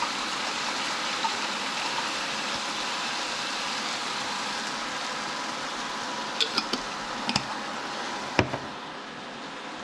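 Chicken and curry sauce with a little added water sizzling in a pan, a steady hiss. A few quick clinks of a utensil on the pan come partway through, then one louder knock near the end, after which the sizzle is slightly quieter.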